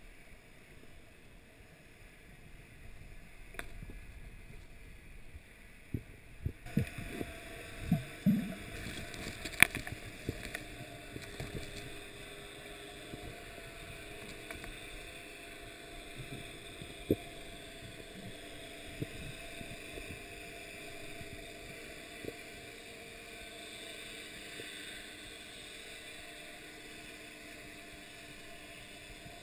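Underwater sound picked up by a submerged camera: a low, muffled wash with scattered sharp clicks and knocks. A cluster of them falls from about six to ten seconds in, the sharpest just before ten seconds, and a few single ones come later.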